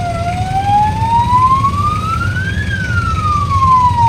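Wailing siren gliding slowly up in pitch for about two and a half seconds, then back down, over the low rumble of a moving vehicle.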